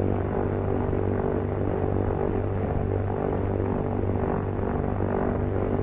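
Twin radial piston engines and propellers of a C-47 running steadily in level flight: a constant, unchanging hum.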